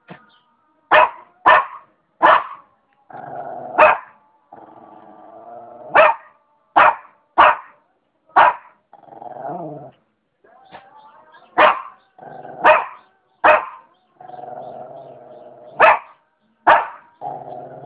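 Shih tzu barking, about a dozen short sharp barks at uneven intervals, with low growls about a second long in between.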